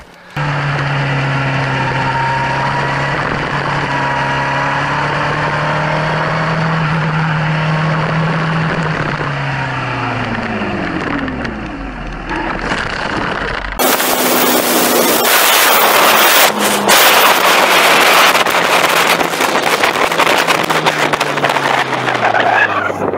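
Sport motorcycle engine running at steady revs, then dropping in pitch as it slows. About halfway through, loud wind noise on the helmet or bike camera's microphone takes over, with the engine faint beneath it.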